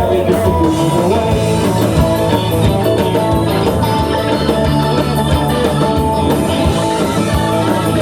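Live rock and roll band playing an instrumental stretch between sung verses, with bass, drums, keyboard and saxophone in a steady driving beat.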